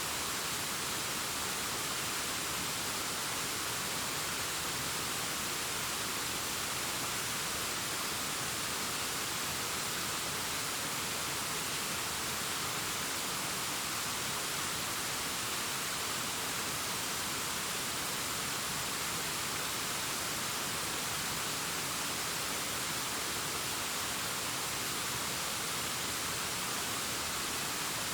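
Waterfall cascading down a rock face: a steady, even rushing hiss, strongest in the high range, with no change in level.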